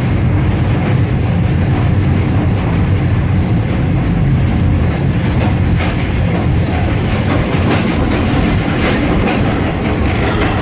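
Passenger train running along the track, heard from aboard the carriage: a steady low rumble of the wheels on the rails.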